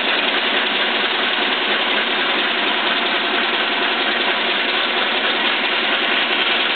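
Biernatzki horizontal milling machine running under power, its new drive shaft and the feed shafts turning, with a steady, loud mechanical gear noise that does not let up. The owner says the new drive shaft runs smoothly and puts the remaining noise down to the table feed gearbox's feed-direction switch, which he calls noisy as hell.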